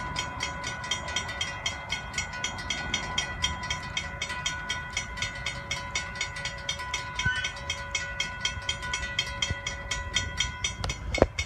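Railroad grade-crossing warning bell ringing rapidly, about five strokes a second, while the crossing gates lower. A steady tone runs beneath it and cuts off near the end.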